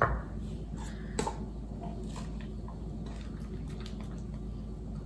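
Soft homemade ice cream being scooped with a silicone spatula and spooned into a small plastic container: quiet squishing and scraping, with a light knock right at the start and another about a second in.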